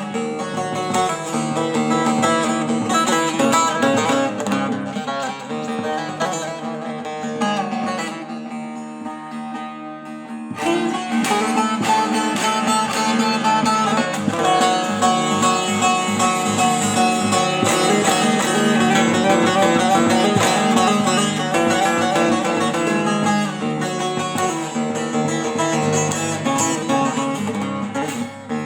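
Divan bağlama (Turkish long-necked saz) with a stave-built walnut bowl being played with a pick: a continuous run of plucked melody with rapid strokes. The playing softens about eight seconds in and comes back louder about ten and a half seconds in.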